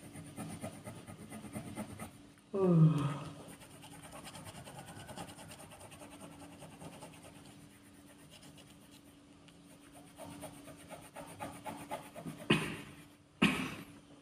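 Coloured pencil scratching on paper in quick strokes while a picture is coloured in. A short falling cry about three seconds in, and two short loud rushes of noise near the end, stand out above it.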